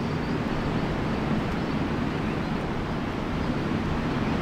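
Steady low rumbling noise with a fainter hiss above it, even throughout with no distinct events.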